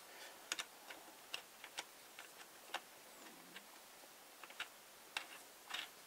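Faint, irregular small clicks and ticks as a wing nut threaded on a hanger bolt is turned by hand to drive the bolt's wood-screw end into a board.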